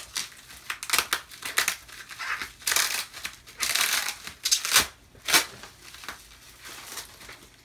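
Clear plastic wrap crinkling and crackling as it is pulled and peeled off a training dummy's head, in irregular rustles with two sharper crackles about five seconds in.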